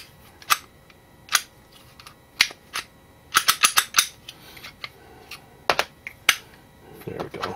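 Sharp, irregular metallic clicks and clacks from a Kahr CW9 pistol's slide and firing pin stop being wiggled and worked into place by hand during reassembly, with a quick cluster of clicks a little past the middle.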